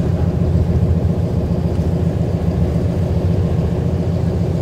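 Tour boat's engine running steadily under way, a continuous low rumble.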